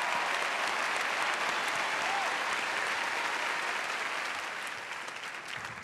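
A large theatre audience applauding steadily, dying away near the end.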